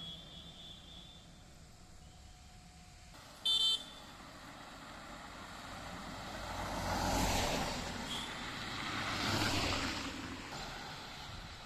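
A vehicle horn gives one short blast about three and a half seconds in. Then a car passes close by, its engine and tyre noise swelling and fading, and a second vehicle passes about two seconds later.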